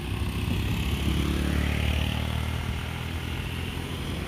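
Motorcycles passing close by on a wet road, their engines swelling to a peak between one and two seconds in, then fading away.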